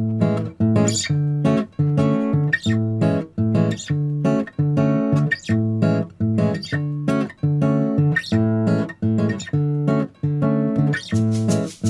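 Background music: acoustic guitar strumming chords in a steady, even rhythm.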